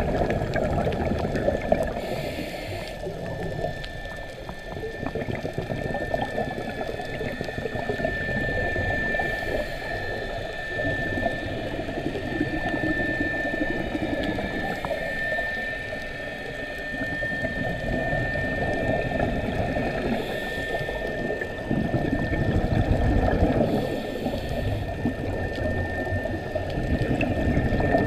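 Muffled underwater sound heard through a camera housing while scuba diving: a low rumbling wash with a short burst of exhaled regulator bubbles every five or six seconds, over a steady high whine.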